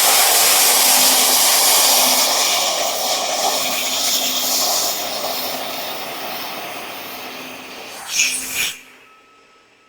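Handheld laser cutter in use: a loud, steady hiss of gas jetting from the cutting nozzle as the laser cuts through metal, slowly weakening after about five seconds, flaring briefly and then cutting off sharply near the end.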